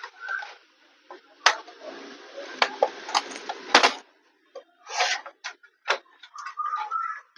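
Plastic bottom cover of a Dell Inspiron 3501 laptop being pried off: its snap clips click loose one after another, with the plastic scraping between the sharper clicks for a couple of seconds.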